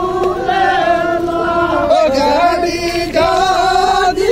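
Men's voices singing a chant together, with long held notes.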